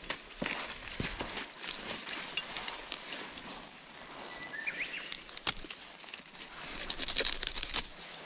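Rustling and crackling in dry leaf litter and undergrowth, with sharp snaps and clicks throughout and a denser burst of rustling near the end. A short bird chirp comes about halfway through.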